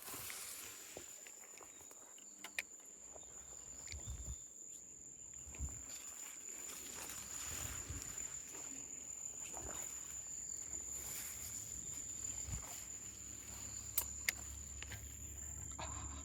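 An insect trilling on one steady high pitch throughout, with soft footsteps and rustling and a few sharp clicks of someone moving quietly.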